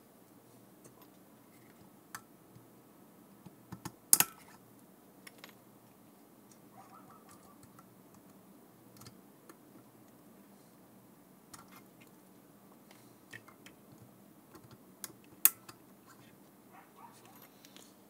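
Scattered small metal clicks and snaps as pliers spread and pull lock washers off the controller board's metal mounting posts, the sharpest about four seconds in and again near the end, some with a short ring.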